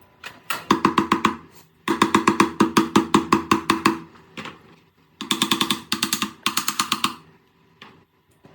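Rapid, even knocking with a ringing pitch, in three bursts of one to two seconds each, about nine strikes a second.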